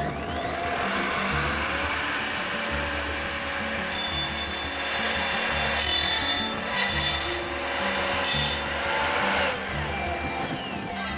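Evolution Rage 255 sliding miter saw running: the motor whines up in pitch as it starts, and about four seconds in the blade bites into the stock, making a cut for about five seconds. Near the end the motor winds down with a falling whine.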